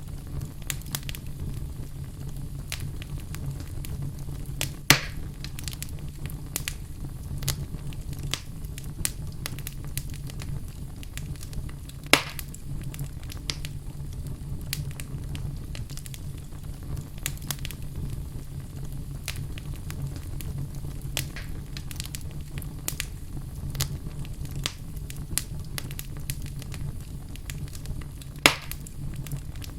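Wood fire burning in a fireplace: steady crackling of many small snaps over a low rumble, with three louder pops, about five seconds in, about twelve seconds in and near the end.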